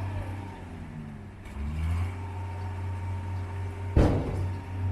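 Engine of heavy road-construction machinery running with a steady low hum, its pitch shifting briefly about a second in, and one loud clank about four seconds in.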